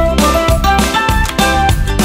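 Instrumental background music with a steady beat and a melodic line of short notes.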